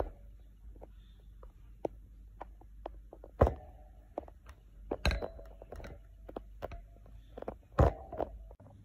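Shredded paper cage bedding rustling and crackling right at the microphone, with scattered sharp clicks and three louder thumps, about three and a half, five and eight seconds in, over a low hum.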